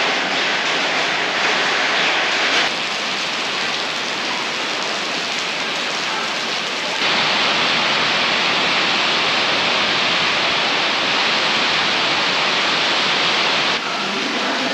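Steady rain falling on wet pavement and flooded ground, a continuous hiss whose level jumps abruptly a few times: about 3 seconds in, about 7 seconds in, and near the end.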